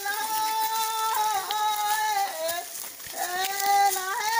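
A high voice singing a slow melody of long held notes that slide from one pitch to the next, with a short break about three seconds in.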